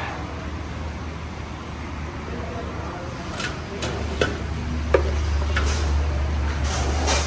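A steel knife clinking and scraping a few times against an aluminium cooking pot and a steel tray as cooked mutton pieces are lifted out, over a steady low mechanical hum.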